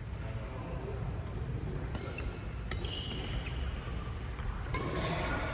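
Badminton doubles rally: sharp clicks of the shuttlecock off racket strings and short high squeaks of court shoes on the hall floor, starting about two seconds in and getting busier towards the end, over a steady low hum.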